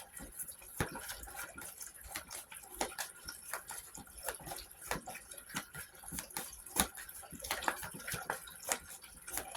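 Faint, irregular light clicks and taps, several a second.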